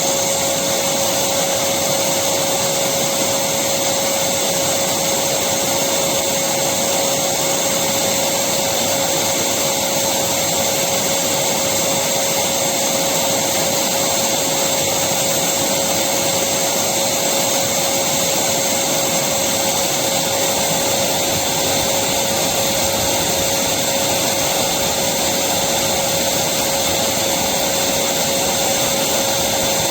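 Electric vacuum cleaner running steadily: a constant whooshing hiss with an even hum and no change in speed.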